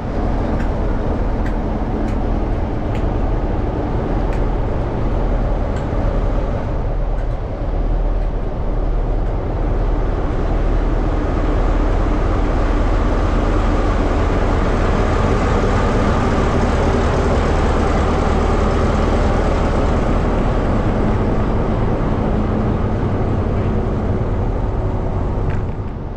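Class 47 diesel-electric locomotives with their Sulzer twelve-cylinder engines running as the train passes along the platform, a steady engine drone over the noise of wheels on rail, with a few sharp clicks early on. The sound eases slightly near the end as the train clears the platform.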